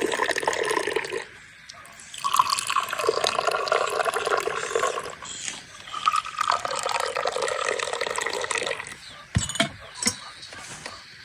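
Water pouring or running in three spells of one to three seconds each, followed by a couple of sharp knocks near the end.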